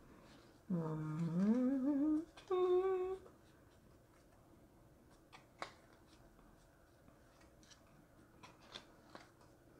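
A person hums briefly with closed lips: a wavering phrase that rises in pitch over about a second and a half, then a short held higher note. After that come only a few faint clicks of playing cards being handled.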